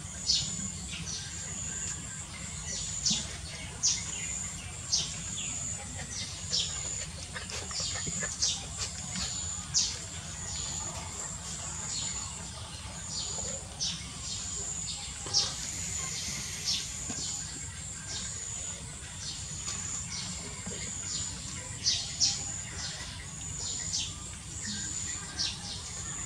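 Small birds chirping: many short, high chirps that slide downward, about one or two a second, over a low steady rumble.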